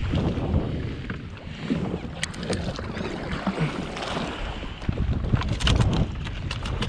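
Wind buffeting the microphone in a heavy low rumble, with the sea around a jetski beneath it. Sharp clicks come in a group about two seconds in and again near the end.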